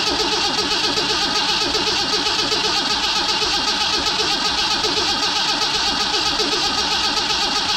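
Holden 173 red straight-six engine turning over on its starter motor in a steady, even rhythm without firing, the carburettor still not getting fuel after the car sat for six years.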